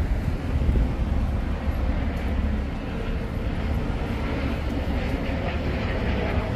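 Steady noise of motor vehicles passing on a city street, strongest in the low end, with a hissier, tyre-like sound building in the second half.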